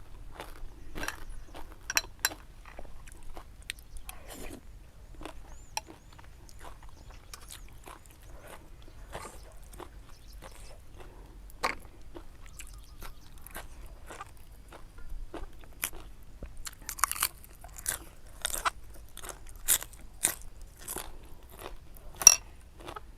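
A person chewing and crunching food close to the microphone: irregular crisp crunches and mouth clicks, coming thicker and louder in the last third.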